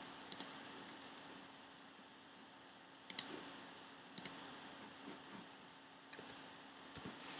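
Computer mouse clicking: single sharp clicks a second or more apart, then a quick run of clicks near the end, over a faint steady hum.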